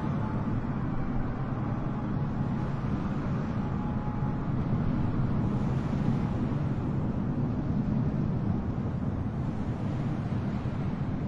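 Steady low cabin noise of a jet airliner, the engines and airflow heard from inside the passenger cabin.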